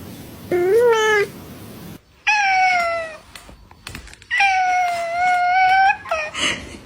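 Domestic cat meowing three times: a short rising meow, then a falling one, then a longer held meow of about a second and a half.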